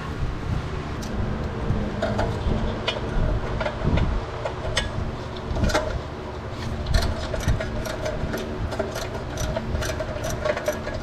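An engine running steadily, with a low rumble and a steady hum, and scattered clicks and knocks over it.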